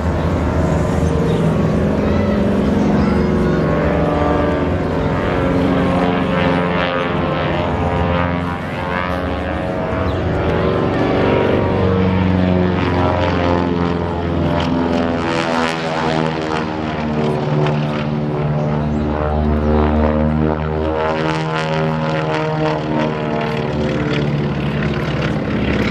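Beech 18's two nine-cylinder Pratt & Whitney R-985 radial engines and propellers droning through an aerobatic routine. The pitch keeps shifting up and down as the plane manoeuvres.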